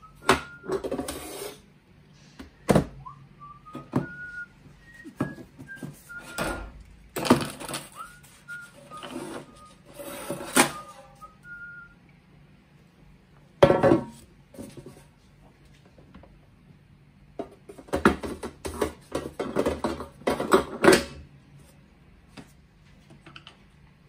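A person whistling a tune through the first half while the metal bread-maker pan clatters as it is lifted out. About 14 s in there is a sharp knock, then a run of knocks and rattles around 18–21 s, as the upturned pan is knocked and shaken to release the baked loaf.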